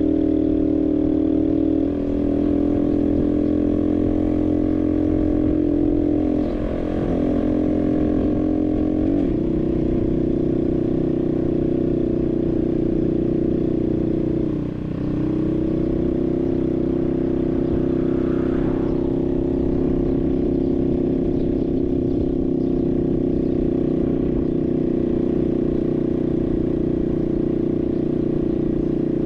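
Barton Volcano 50cc moped engine running steadily under way. Its note shifts a little a couple of times, then dips briefly and picks back up about halfway through, as the throttle is eased and reopened.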